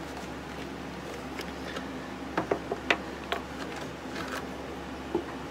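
Scattered light clicks and taps from a cardboard product box being handled and opened, a handful of them in a cluster around the middle and one more near the end, over a low steady hum.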